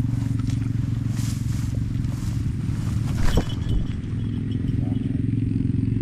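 A motorcycle engine running at a steady speed, with a brief sharp sound about three seconds in.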